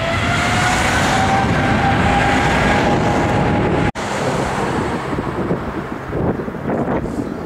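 GE90-94B turbofans of a Boeing 777-200ER at takeoff power: a loud fan whine that rises and then holds steady over a broad rumble. About four seconds in it cuts abruptly to a rougher, more distant jet rumble with wind on the microphone.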